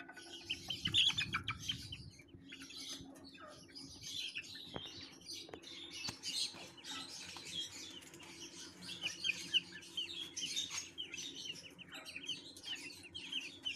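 Small birds chirping and twittering in many quick, high calls, over a steady low hum, with two light knocks about five seconds in.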